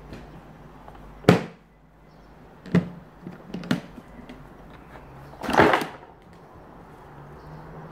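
Hard plastic knocks and clatter from a fishing seat box's tackle tray being handled and lifted out: a sharp knock about a second in, two lighter knocks in the middle, and a longer, louder clatter past halfway.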